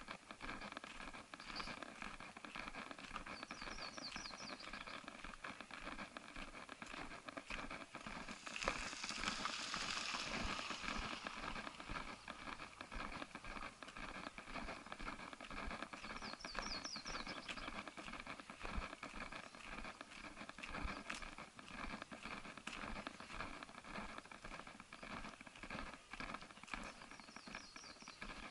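Footsteps on a gravel path while walking. Three times, a brief high trill sounds, and a louder hiss swells for a couple of seconds about eight seconds in.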